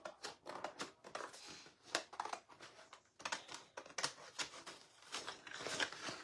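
Scissors cutting out a paper print: a run of short, irregular snips with some paper rustle.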